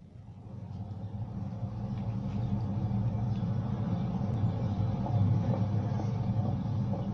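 A steady low rumble that fades in and grows louder over the first few seconds, then holds.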